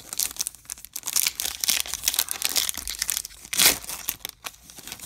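Foil wrapper of a 2022 Bowman Platinum baseball card pack crinkling in the hands and being torn open. The loudest tear comes about three and a half seconds in.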